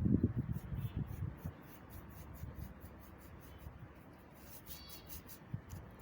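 Scratchy rubbing and handling noise, louder and knocking during the first second and a half, then lighter rapid scratching. A few short high chirps sound about a second in and again near the end, typical of a small cage bird.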